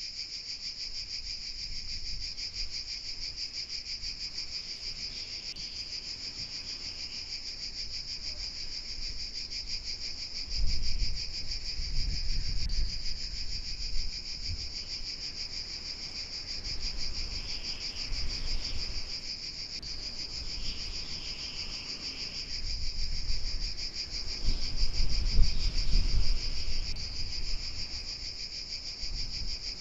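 A dense, steady chorus of insects, a continuous fast-pulsing high chirr. Several low rumbling gusts of wind hit the microphone in the second half, the strongest near the end.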